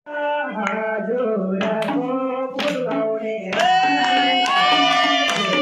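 Deusi bhailo carol sung into a microphone and played through a loudspeaker, with one long held note about halfway through and a few sharp percussive beats in the first half.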